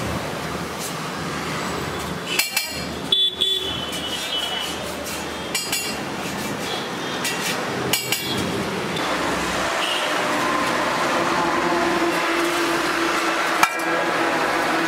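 Steady roadside traffic noise, broken five times by sharp metallic clinks.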